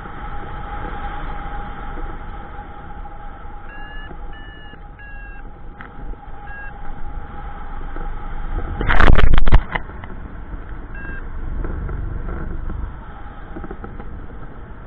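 Wind rushing over the camera microphone in paraglider flight, with short high beeps from about four seconds in, the climb beeping of a flight variometer. About nine seconds in, a sudden very loud burst of noise lasts about half a second.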